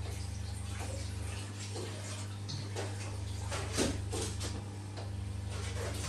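Electric massage chair running: a steady low motor hum whose lowest part drops away about a second and a half in and returns about three seconds in, as the massage mechanism changes action. Scattered light clicks and knocks from the mechanism come through, the loudest about four seconds in.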